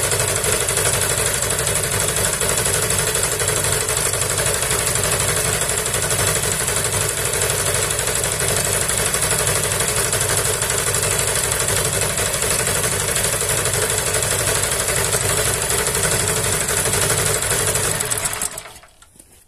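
Homemade generator, a small air-cooled petrol engine driving an induction motor used as the alternator, running steadily under about a 1.1 kW load with a steady high whine over the engine note. About 18 seconds in it cuts out and runs down within a second, ending a 50 ml fuel-consumption run.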